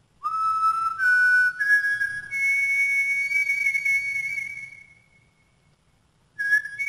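Intro jingle of high, whistle-like notes that step upward one after another and ring on together, then fade out after about four seconds. A new whistle-like note starts shortly before the end.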